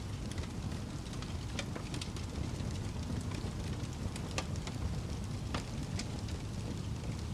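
Wood fire burning: a low steady rumble with scattered sharp crackles and pops at irregular times, a few louder pops past the middle.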